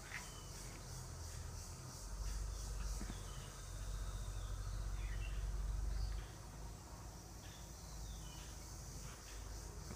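Insects chirring steadily in a high, finely pulsing hiss, with a few faint chirps. A low rumble runs under it and drops away about six seconds in.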